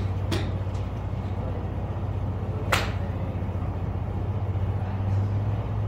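Sharp crack of a golf club striking a ball, loud once near the middle, with a fainter strike about a third of a second in, over a steady low hum.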